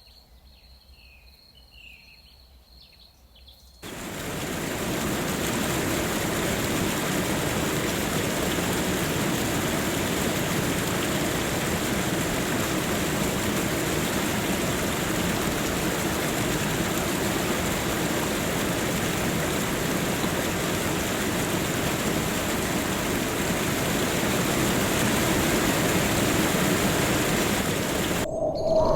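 Faint steady insect trill with a few bird chirps, then about four seconds in, loud steady rushing water starts abruptly, as of a jungle waterfall. It cuts off suddenly near the end.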